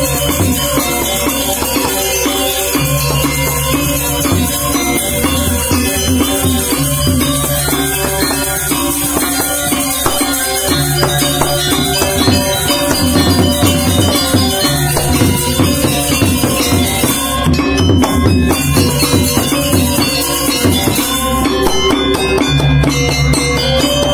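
Balinese gamelan gong ensemble playing: bronze metallophones ringing in repeating patterns over drums, with a steady bright metallic shimmer.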